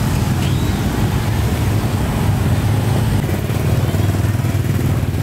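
Motorbike engines running close by, a steady low drone amid street traffic.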